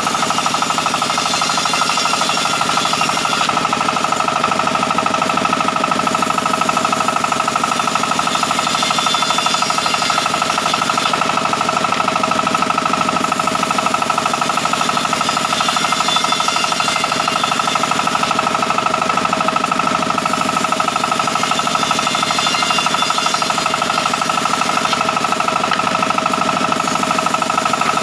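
Sawmill saw running steadily, a constant whine over a fast, even rattle.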